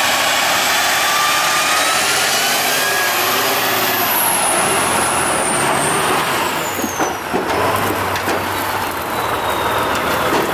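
Tatra 813 8x8 truck's diesel engine working under load, with a high whine that rises and then falls in pitch over the first few seconds. Irregular clicks and knocks come in during the second half.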